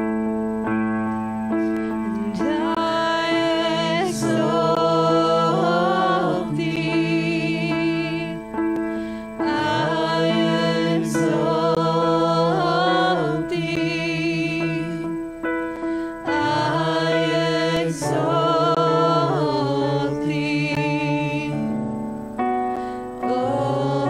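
Worship team singing a song in several voices to electronic keyboard accompaniment: steady sustained chords, with sung phrases coming in over them about every seven seconds.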